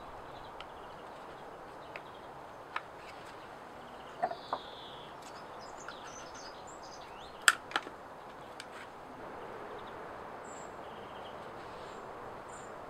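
A few sharp clicks and taps as stiff birch bark is handled and pressed into shape, the loudest about seven and a half seconds in, over a steady outdoor hiss with faint bird chirps.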